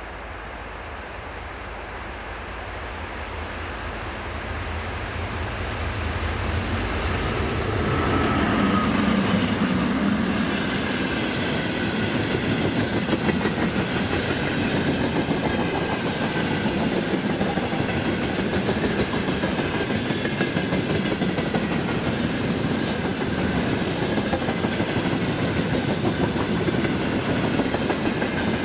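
Freight train hauled by a 2ES6 "Sinara" electric locomotive approaching, growing louder over the first eight seconds or so, then its wagons rolling past with a steady clatter of wheels on the rails.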